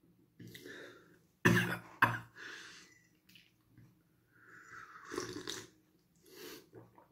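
A man coughs twice in quick succession about a second and a half in, with breathing in between, then slurps a drink from a mug around five seconds in. Both are a reaction to the burn of very spicy instant ramen.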